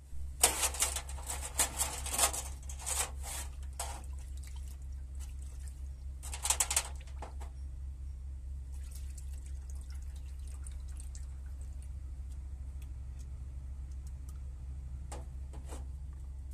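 Liquid splashing and dripping in a shallow metal tray as hydraulic piston pump parts (cylinder block and pistons) are lifted and turned in the fluid. There are several louder splashes in the first few seconds and again about six seconds in, then quieter drips and light clicks of the small metal parts, over a steady low hum.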